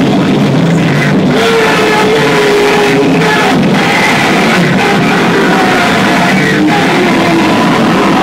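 Loud live noise music: a dense, distorted wall of sound that stays at full level throughout, with a few brief held tones showing through it.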